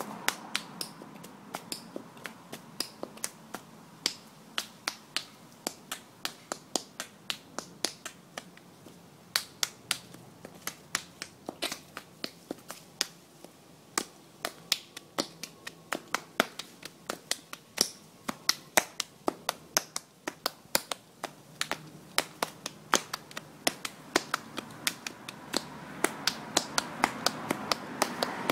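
A steady run of sharp, dry clicks at an uneven pace of about three a second, over a faint background hiss that grows a little louder near the end.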